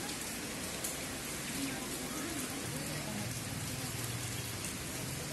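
Steady rain falling on wet paving, with now and then a single drop ticking close by.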